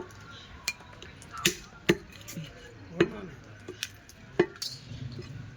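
A butcher's blade chopping through goat meat and bone: about seven sharp, unevenly spaced strikes.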